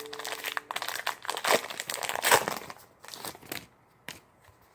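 Crinkling of a trading-card pack wrapper as it is torn open and handled. The crinkling dies away after about three and a half seconds, and a single click follows near the end.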